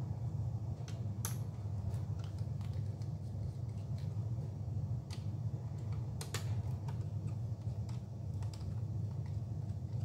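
Scattered light clicks and taps of a small screwdriver and fingers on a laptop's opened plastic-and-metal base at the hinge, over a steady low hum.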